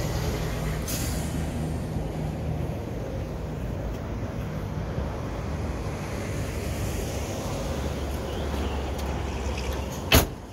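Car engine idling steadily with a low rumble, and a car door slamming shut about ten seconds in.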